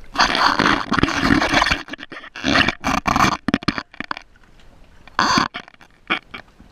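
Water sloshing and gurgling against a waterproof action-camera housing as it moves through the surface, in two loud rushes over the first four seconds and once more, briefly, about five seconds in.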